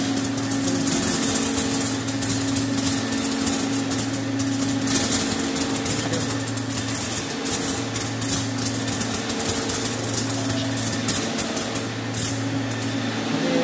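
Mark Trendz T20 garlic colour sorter running: a steady low hum under a dense crackle of rapid clicks and hiss, typical of the air-jet ejectors rejecting items. A second low tone cuts in and out every couple of seconds.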